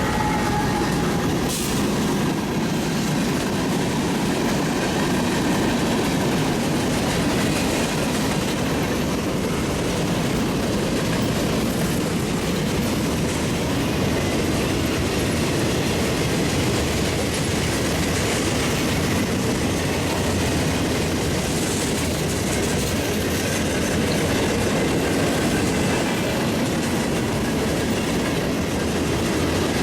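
Freight cars of a CSX train rolling past, a steady rumble and clatter of steel wheels on the rails.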